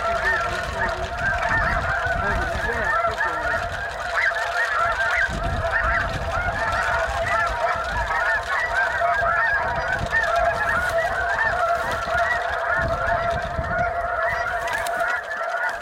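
A dense chorus of snow geese calling: many overlapping high yelping honks, unbroken throughout, with a low rumble underneath.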